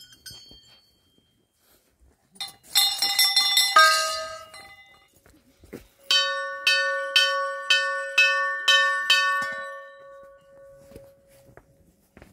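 Small brass temple bells hanging along a railing, rung by hand in passing: a quick jangle of many bells about two seconds in, then a run of single strikes at about two a second, their ringing dying away near the end.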